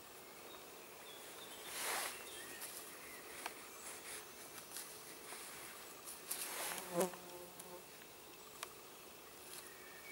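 Soft rustling of a hessian sack as a live-trapped squirrel moves about inside it, in two short bouts, the second with an insect buzzing close by.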